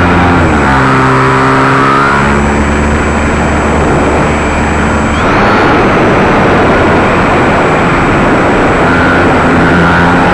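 Electric motor and propeller of a radio-controlled plane running, its pitch gliding down about half a second in and shifting again with a brief rising whine about five seconds in as the throttle changes. The motor is losing power as its worn LiPo battery runs flat. Heavy wind noise on the microphone runs underneath.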